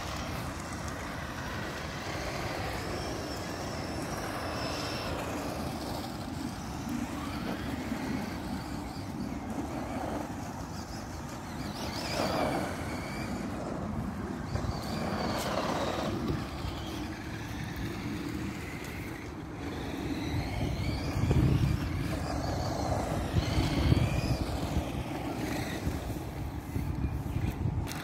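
Electric motors of radio-controlled toy cars whining, rising and falling in pitch several times as the cars speed up and slow down, over a steady noisy rumble. A louder low rumble swells twice in the last third.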